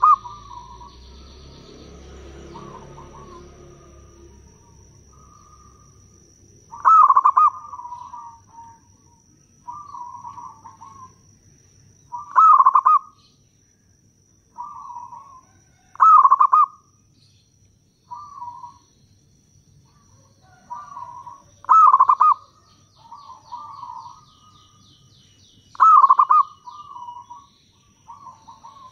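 Zebra dove (perkutut) cooing. A loud rolling phrase of coos is followed by softer trailing coos, and the pattern repeats about every four to six seconds.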